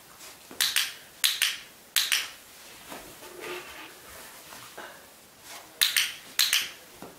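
Sharp clicks in close pairs from a handheld dog-training clicker: three pairs in quick succession early on, then two more pairs near the end.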